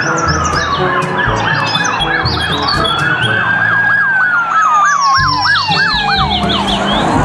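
Police car siren sounding: a slow wail that falls, rises and falls again, overlaid with a fast yelp sweeping up and down about three times a second.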